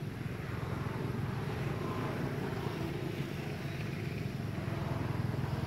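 Steady low engine rumble that slowly grows louder, like a motor passing at a distance.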